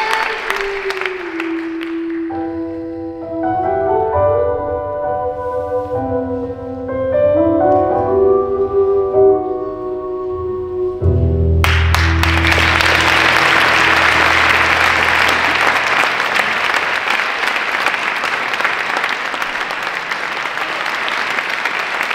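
Dance music with sustained keyboard notes and a deep bass ends on a final low chord, and about halfway through an audience breaks into sudden loud applause that carries on as the chord dies away.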